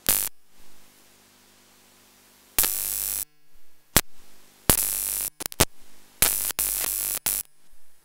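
Loud static crackle that cuts in and out abruptly about eight times, the longer stretches lasting about half a second, over a faint steady electrical hum.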